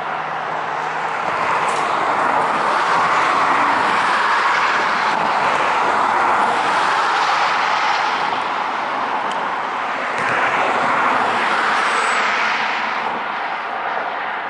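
Steady rush of road traffic, with tyre noise swelling and easing as vehicles pass.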